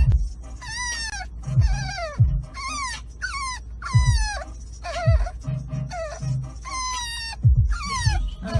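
Dog whining in a string of short, high-pitched cries, each falling in pitch, over background music with deep bass thumps.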